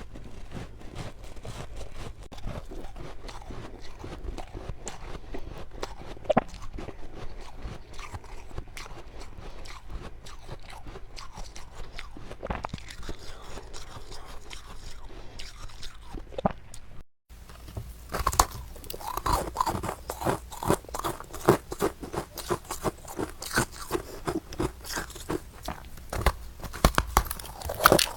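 Close-up crunching and chewing of freezer frost, soft powdery snow ice packed into the mouth, with dense quick crunches. After a brief break about two-thirds of the way through, the crunches come louder and more distinct.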